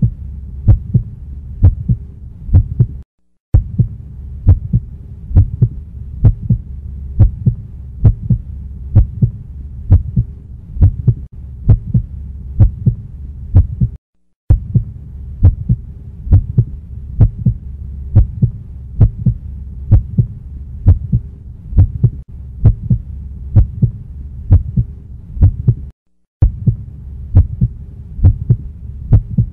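A steady pulse of low thumps over a low hum, like a heartbeat, falling silent for a moment three times.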